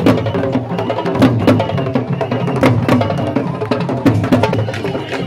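A troupe of Senegalese griot drummers playing sabar drums together with sticks and hands: many sharp, fast strokes in a dense, unbroken rhythm.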